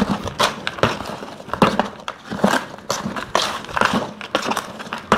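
A hand stirring a gritty bonsai soil mix of organic compost, pumice and fine volcanic stone in a plastic bucket: irregular crunching and scraping of the grit, about two strokes a second.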